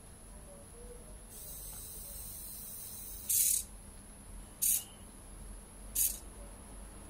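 Small hobby servo on a homemade robot turning its ultrasonic sensor head: three short high-pitched whirs about a second and a half apart, after a fainter hiss.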